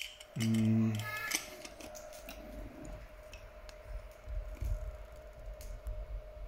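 Scattered light clicks and rubbing from a glass battery hydrometer being handled and filled with electrolyte from a lead-acid battery cell, over a faint steady whine.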